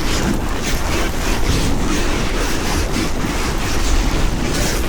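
Wind buffeting the microphone, with the steady hiss and scrape of a wooden board sliding fast over loose volcanic ash and gravel.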